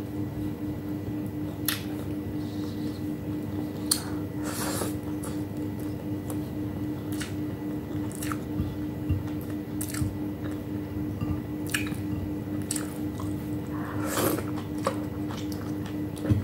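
A person chewing food with wet mouth sounds and sharp lip smacks every second or two, over a steady hum.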